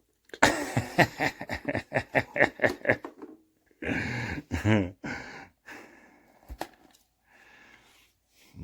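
A person laughing hard in quick pulses for about three seconds, then laughing again around four seconds in.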